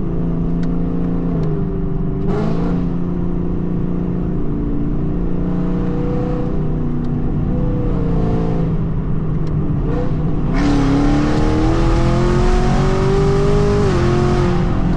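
Car engine under load. About ten seconds in it gets louder and its pitch climbs steadily for a few seconds as the car is accelerated hard, then it eases slightly.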